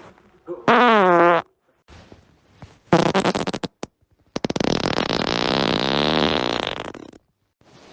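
A person farting three times: a short squeaky one that falls in pitch about a second in, a quick rattling one near three seconds, then a long buzzing fart lasting nearly three seconds.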